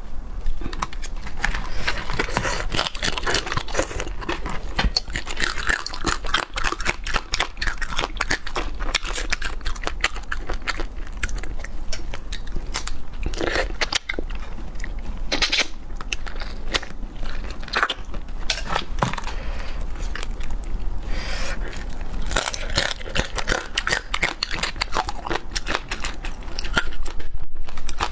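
Close-up crunching and chewing of raw marinated small crabs, the shells cracking between the teeth in a dense run of crackles. Wet sounds of crabs being pulled apart in the sauce mix in.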